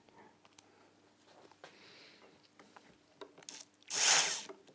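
Small clicks and taps of loose screws being picked up and handled ready for driving, with a brief rattling burst about four seconds in.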